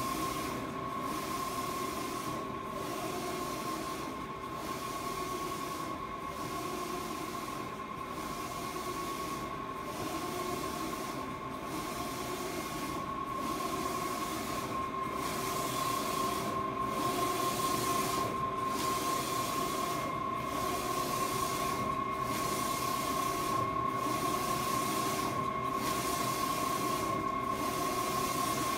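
Garros RT-1801 large-format printer running, its print-head carriage shuttling back and forth across the roll. A steady whine and hiss dips briefly at a regular rhythm, about every two seconds.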